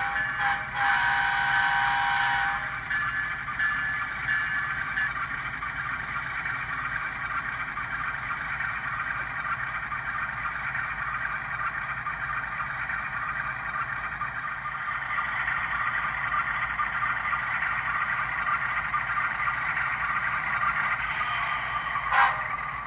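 Sound-equipped model diesel locomotive running along the track with its engine sound playing through its small speaker, and a horn held for the first two or three seconds. The sound swells partway through, and a single sharp clank near the end comes as it couples onto a hopper car.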